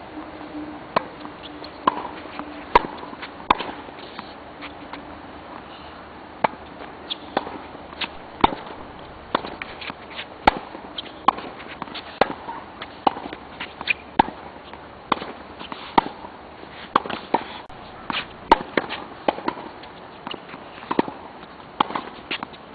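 Tennis balls struck by rackets and bouncing on a court during hitting practice: sharp pops about once a second, irregularly spaced.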